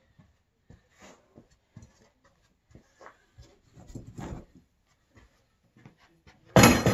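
Rustling and light knocks as a Kinder Shuttle pulk sled's nylon cover and plastic tow poles are handled, with a denser patch of scratchy rustle about four seconds in. A sudden loud burst of noise, the loudest sound, comes near the end.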